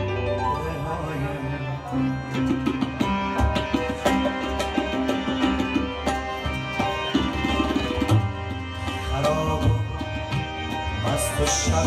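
Instrumental passage of an Afghan song: harmonium playing the melody in held, reedy notes over a steady tabla rhythm with quick strokes.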